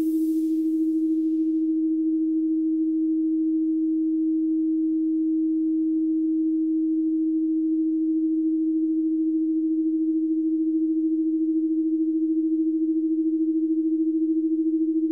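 A single steady electronic sine tone held at one middle pitch throughout, with a hiss in the high range fading out in the first second or two.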